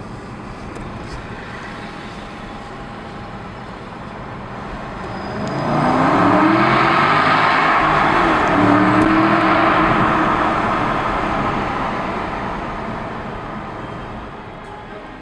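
Aston Martin V8 Vantage's V8 engine accelerating hard in a tunnel. Its note rises about five and a half seconds in, stays loud for several seconds, then gradually dies away.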